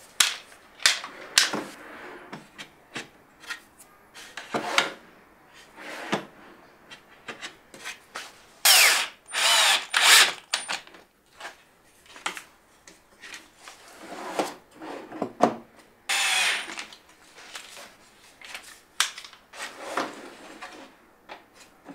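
Bosch cordless drill-driver driving screws into wood in a few short runs of about half a second to a second, the first with a rising whine. Short knocks and handling of the wooden drawers come in between.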